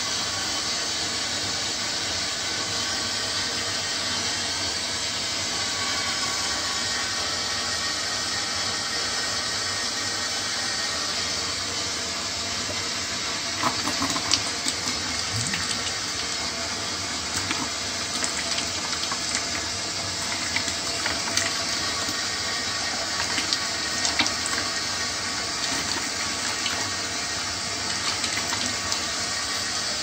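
Water running steadily through a steam boiler's piping during skimming, a constant hiss like an open tap. From about halfway there are scattered splashes and drips into a bucket below the drain valve.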